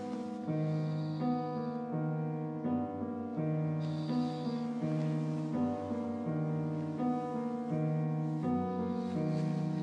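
Gentle piano music, a slow repeating figure of notes changing about every half second to second.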